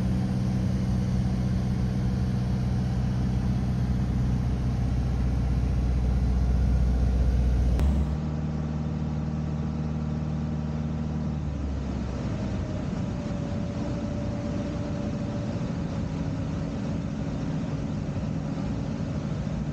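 Light aircraft piston engine and propeller running steadily in flight. By its sound it is not a Rotax, more than likely a Lycoming. About eight seconds in the sound changes abruptly to a slightly quieter, steady engine and propeller drone heard from inside the cockpit.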